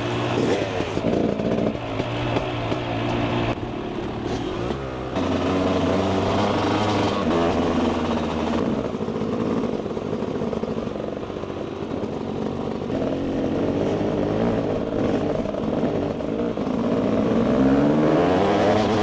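Motor vehicle engines running and revving, their pitch rising and falling, with several abrupt changes in the sound and a rev climbing near the end.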